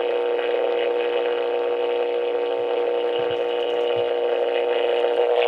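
GPX D505 clock radio's alarm buzzer sounding: a steady, annoying electronic buzz on one pitch that gets a little louder near the end.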